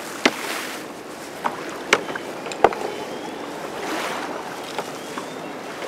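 Fishing net being handled close by: a few sharp clicks and knocks in the first three seconds, with swishing rushes of noise about half a second in and again about four seconds in.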